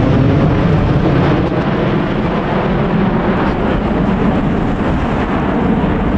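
Boeing 777 jet engines at go-around power: a loud, deep roar that eases off slightly after about a second.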